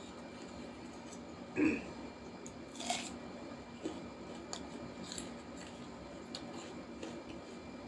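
Close-miked eating by hand: a crisp crunching bite and chewing, loudest about one and a half and three seconds in, followed by a few soft clicks and smacks. A faint steady hum runs underneath.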